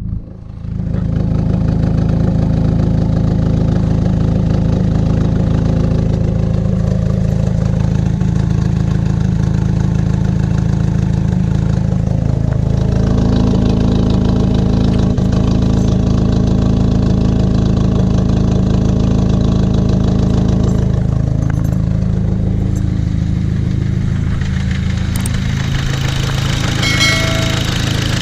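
Dodge Caliber SRT-4's turbocharged 2.4-litre four-cylinder running steadily, its engine note shifting for several seconds in the middle and then settling back. The owner suspects a rod knock.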